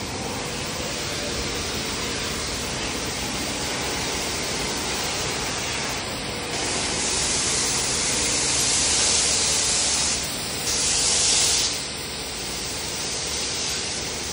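Water spraying from an automatic underbody car-wash machine under a car: a steady hiss, growing louder for several seconds from about halfway through, then one more short, loud blast soon after.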